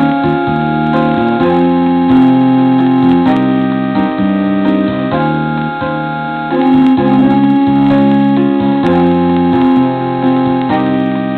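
Background music on an electronic keyboard: held chords that change every second or two.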